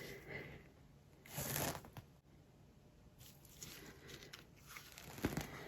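Small handling noises from mixing acrylic paints in plastic cups: a short scraping rustle about a second and a half in, then light clicks and a sharp knock near the end.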